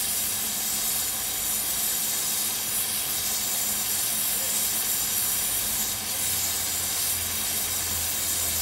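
Narrow-gauge Double Fairlie steam locomotive standing with steam hissing out steadily around its bogies.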